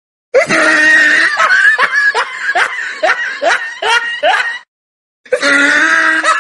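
Small dog howling along with a man, in a run of short cries that rise in pitch, about two or three a second. It breaks off briefly about two-thirds of the way in, then starts again.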